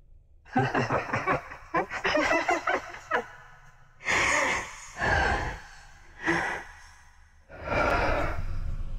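A person's voice: a run of short, broken vocal sounds, then four heavy breaths or sighs, the last one the longest.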